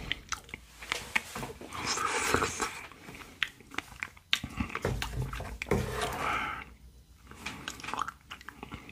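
Close-miked eating of a strawberry shaved-ice dessert (bingsu): chewing and crunching shaved ice and strawberries, with a wooden spoon scraping and scooping up more shaved ice. There are two thicker spells of crunching or scraping, about two seconds in and about six seconds in.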